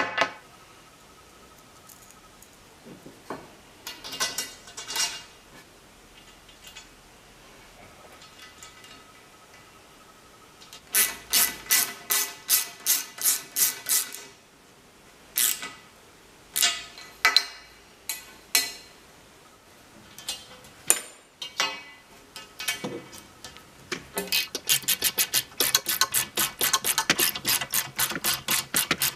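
Hand-tool work on a metal tube: scattered sharp metallic clicks and knocks, then near the end a fast, even run of ratchet clicks as a small ratchet wrench turns a bolt into the tube.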